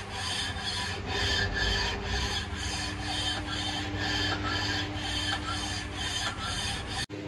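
Honda Civic engine block's deck being faced by hand, with rhythmic rasping strokes of about two to three a second that stop abruptly near the end.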